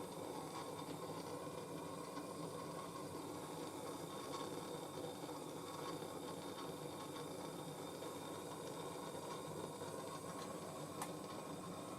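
MAP gas blowtorch flame burning with a steady hiss as it heats a cracked corner joint of a copper lamp top to make the solder flow. A single faint tick near the end.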